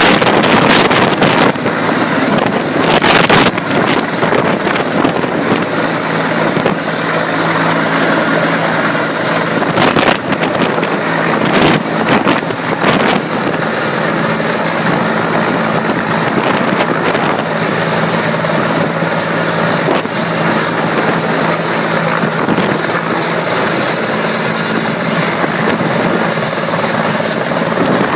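Sikorsky CH-53 heavy-lift helicopter running loud and steady, its rotor and turbine engines making a continuous roar with a steady high whine above it.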